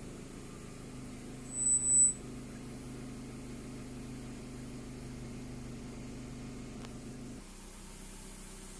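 Car engine idling with a steady low hum, and a short high-pitched electronic beep about one and a half seconds in. Around seven and a half seconds in the hum drops suddenly to a quieter, lower idle.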